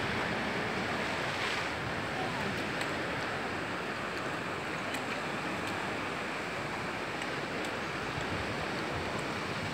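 Steady outdoor wind rushing across the microphone, an even noise with no pitch.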